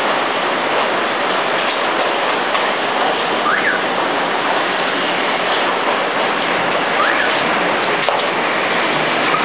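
Heavy storm rain pouring down in a steady, loud hiss.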